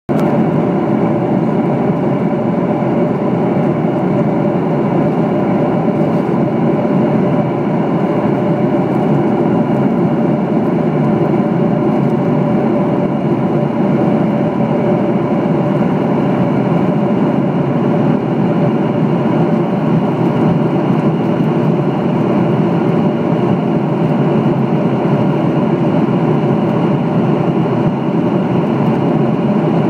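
Steady cabin noise of a Southwest Airlines Boeing 737 in cruise flight, heard inside the passenger cabin: an even rush of airflow and engine drone with a faint steady hum running through it.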